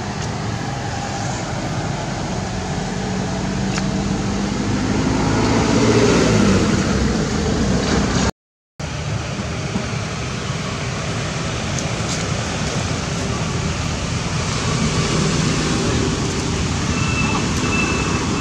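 Road traffic noise, with a motor vehicle's engine rising and falling as it passes about six seconds in. A thin, high, steady whine comes in near the end.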